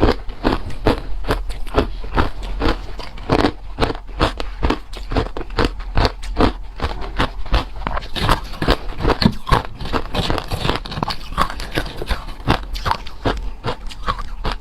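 A person chewing ice close to the microphone: steady, rapid crunching of ice between the teeth, several crunches a second.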